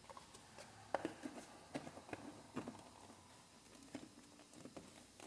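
A metal spoon tapping and scraping against the containers as spoonfuls of sour cassava starch are scooped and tipped into a glass dish: a run of light, uneven clinks, the sharpest about a second in.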